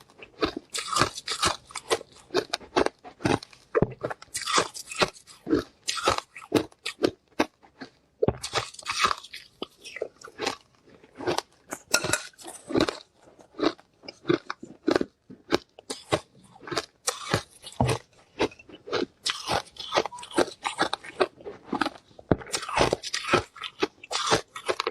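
Ice being bitten and chewed: repeated crunching bites, each breaking into a quick run of crackles, coming every second or two.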